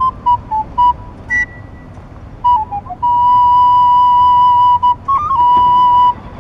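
A plastic recorder playing a solo melody: a few short, detached notes stepping downward, a brief pause, then two long held notes in the second half.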